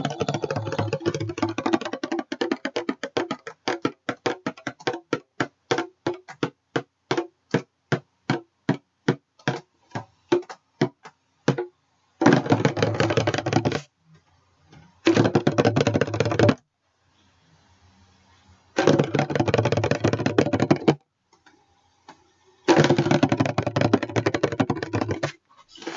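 Bongo drum tapped by hand in a piece meant to evoke rainfall. A fast patter of taps thins into separate strokes that slow to about two a second, then come four short bursts of rapid rolls with silent gaps between them.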